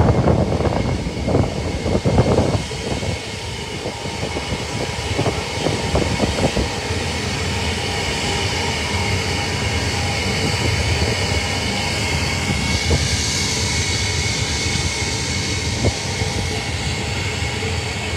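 Jet aircraft engines running at an airfield: a steady rumble with a fixed high whine over it, and louder irregular surges in the first couple of seconds.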